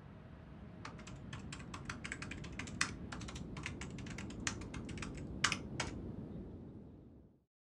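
Computer keyboard keys clicking in quick, irregular typing, over a low rumble that fades out near the end.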